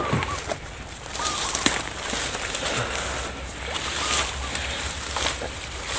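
Rustling and sloshing through wet grass and mud, with a steady high insect drone and a few faint bird chirps.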